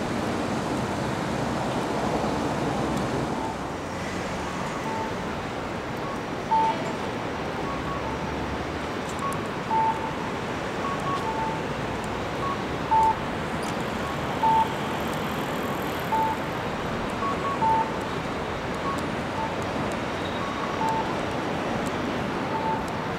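Steady city traffic and street noise, with a repeating two-note electronic chime, a short higher tone then a lower one, about every one and a half seconds from about five seconds in.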